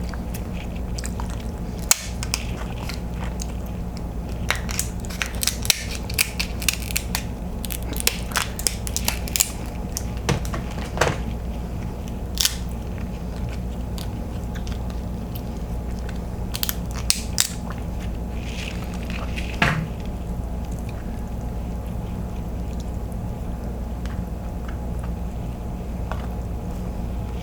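Eating king crab: shells cracking and crunching and the meat being chewed, close to the microphone, as a scatter of sharp cracks that thins out in the last third. A steady low hum runs underneath.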